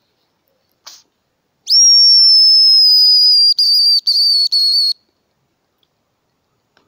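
Homemade hazel grouse call blown close by, imitating a cock hazel grouse's song: one long high whistle that rises sharply, then holds and slowly falls, and ends in three short clipped notes.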